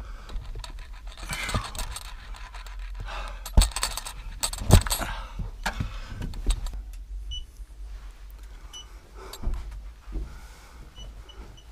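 Footsteps crunching and loose rock rubble clattering underfoot, with two sharp knocks of stone in the first five seconds, then quieter shuffling steps.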